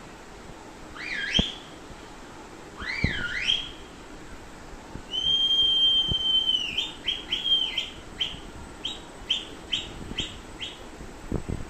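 Whistling sound effect played for a dog. It starts with two warbling up-and-down whistles, then one long steady whistle that breaks into a run of short chirps, about two a second.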